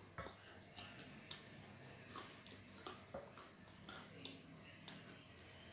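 Faint, irregular crunching clicks of someone eating frozen pizza, its crust baked until slightly burnt and crunchy.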